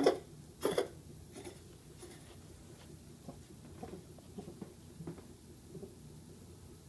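A coughing fit: two sharp coughs in the first second, then two much fainter ones, followed by faint scattered light ticks.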